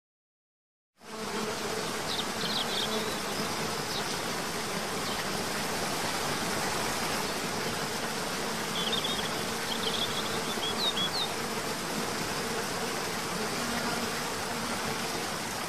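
Steady rush of a waterfall with a low insect buzz over it, starting about a second in, and a few short high bird chirps, once early and again several times around the middle.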